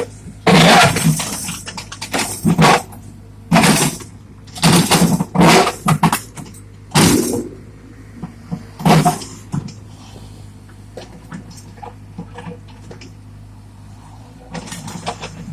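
Caterpillar 305.5E mini excavator working: its engine runs steadily under a series of loud, sudden clattering and scraping bursts in the first half, like the bucket digging and dumping material. The bursts stop about nine seconds in, leaving mostly the engine with light knocks, and start again near the end.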